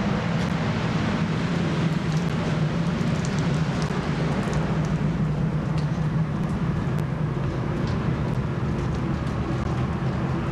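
Steady low drone of a ship's machinery with an even hiss over it and a few faint ticks.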